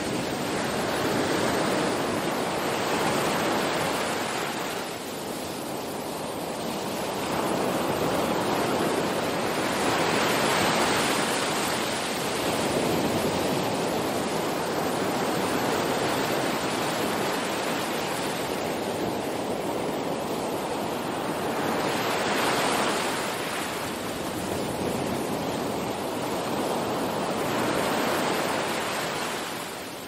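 Ocean surf: waves breaking and washing in, a steady rush of water that swells and eases every several seconds.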